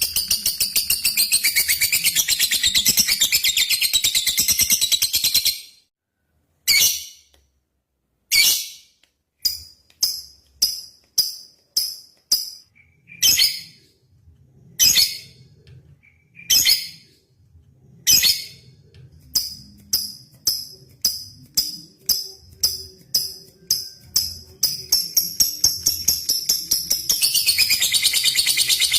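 Lovebird giving its long, rapid chattering trill (ngekek), which breaks off after about five seconds. After a pause come single sharp ticking chirps (ngetik), spaced at first and then coming faster and faster until the long trill starts again near the end. This is a challenge call to a rival.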